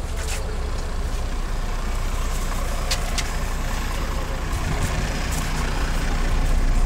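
Engine of a MAZ 105 articulated city bus idling at a stop, a steady low rumble that grows louder near the end, with a few short clicks.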